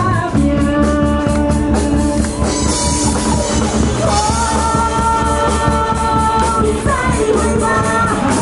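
Live band playing an amplified pop song: a singer's voice with held notes over electric keyboards, electric guitar, bass and drums keeping a steady beat.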